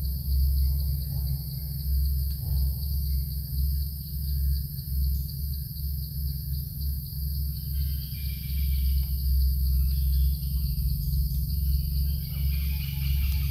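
Insects droning steadily at a high pitch over a strong low rumble, with birds chirping briefly in the second half.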